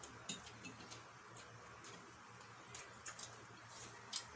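Faint, irregular small clicks and smacks of people eating roast chicken, from chewing and handling the food.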